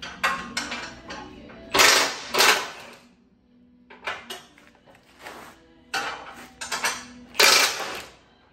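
Metal clanking and knocking at a steel truck frame rail as hardware and tools are handled. There is a string of sharp knocks, with two louder, longer clattering bursts about two seconds in and near the end.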